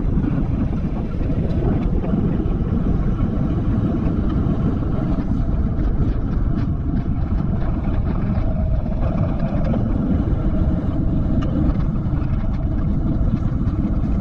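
Wind rushing over an action camera's microphone on a bicycle riding at about 22 km/h, a steady low rumble with tyre noise from the asphalt under it.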